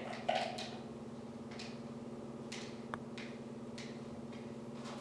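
Stirring stick scraping the inside of a clear plastic mixing cup to get the last of the coating out: a few faint short scrapes and a light click about three seconds in, over a low steady hum.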